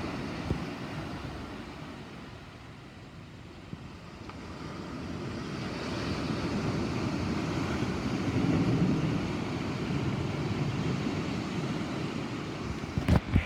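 Rolling thunder: a low rumble that swells over several seconds, peaks about two-thirds of the way through, then eases off. Two sharp clicks near the end.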